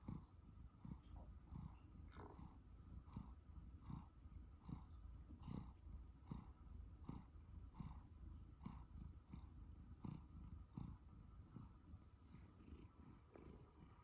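A Siberian Forest cat purring faintly and steadily while being stroked, the deep purr swelling in a regular rhythm a little more than once a second.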